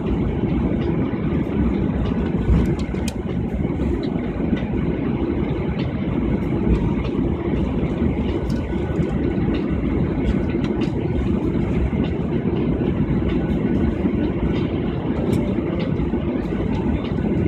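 Airliner cabin noise as the aircraft heads into its takeoff: a loud, steady low rumble of engines and airframe, with faint light ticks over it.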